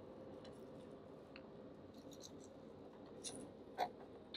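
Faint clicks and small scrapes of wires and a screwdriver being worked into the screw terminals of a solar on/off switch, mostly quiet with a few sharper ticks near the end.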